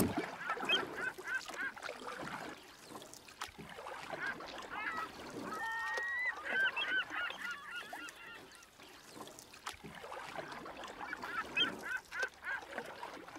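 A flock of birds calling: many short, honk-like calls repeating and overlapping, thickest about six seconds in and again near the end.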